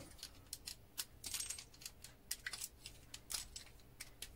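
Small metal relay parts clicking and clinking as a relay switch is picked apart by hand and its pieces dropped: a run of light, sharp, irregular clicks and tinkles.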